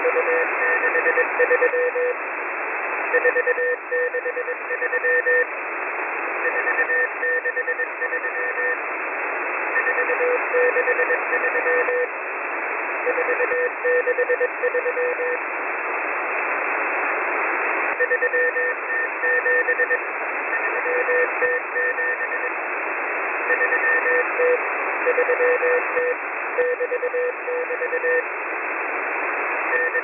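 M01 shortwave number station sending numbers in Morse code, received in upper sideband. A single tone is keyed on and off in short groups with pauses between them, over constant shortwave band hiss.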